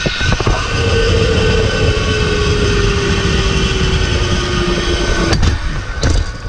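Zip line trolley's pulleys running along the steel cable, with a whine that slowly falls in pitch as the trolley slows into the landing, over wind rush on the microphone. Two sharp knocks near the end as the trolley is stopped at the platform.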